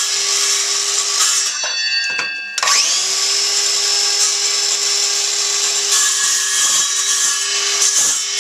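Handheld circular saw running loud and steady while cutting grooves in wood. It shuts off and winds down about a second and a half in, then is restarted a second later, its whine rising as it spins back up, and runs steadily again.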